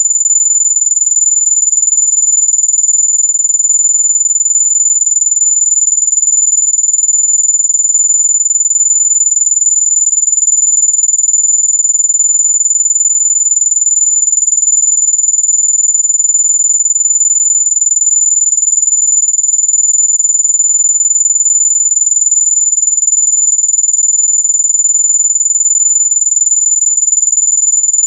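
Electronic mosquito-repellent tone: a single loud, very high-pitched pure tone held perfectly steady without a break, the kind of sine tone played to drive mosquitoes away.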